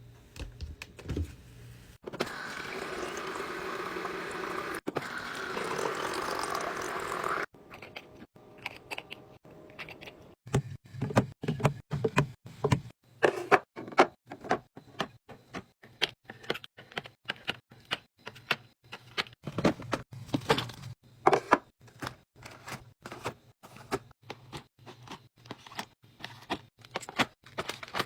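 Items being packed into a mini fridge: a dense run of light clicks, knocks and clinks as containers are set down and handled, after a steady noise lasting about five seconds near the start.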